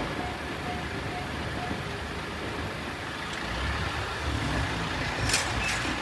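JR-standard electronic level-crossing bell dinging about twice a second, stopping about two seconds in as the warning ends after the train has passed. A vehicle engine rumble then rises as waiting traffic moves off, with a few sharp clicks near the end.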